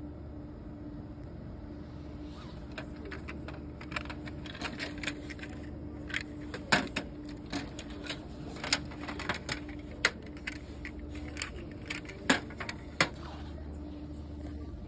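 Clicks and clacks of die-cast model cars being handled on clear plastic display shelves: a run of sharp taps from a couple of seconds in until near the end, a dozen or so of them louder, over a steady hum.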